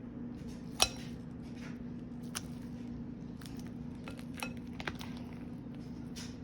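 A pasta spoon clinking against a bowl while stirring thick slime: a scatter of sharp clicks, the loudest a little under a second in, over a steady low hum.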